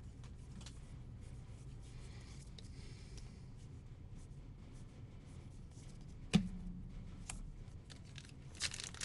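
Quiet handling of baseball trading cards and pack wrappers, with a soft rustle throughout and one sharp tap about six and a half seconds in.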